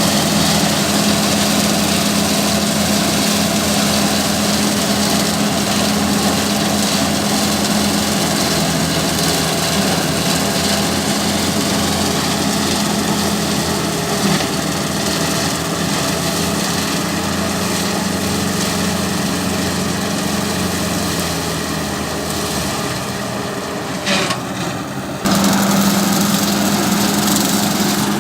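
An engine running steadily with a constant hum. Near the end the sound drops and breaks off briefly, then comes back at full strength.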